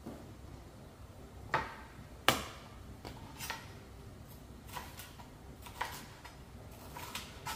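Kitchen knife knocking on a cutting board in slow, irregular single chops, about ten sharp knocks, the loudest about two seconds in.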